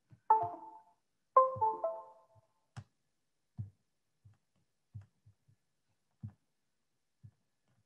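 Two short electronic notification chimes about a second apart, each a few ringing tones that fade quickly. After them come a single click and a scattering of soft low knocks.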